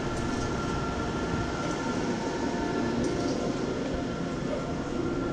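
Gallmeyer & Livingston surface grinder running with its hydraulic power feed on: a steady machine hum with a constant high whine over a low rumble.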